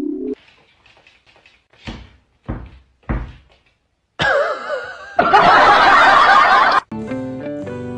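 Three dull thumps about half a second apart, then a loud wavering, warbling sound for about two and a half seconds that cuts off suddenly, followed by guitar music.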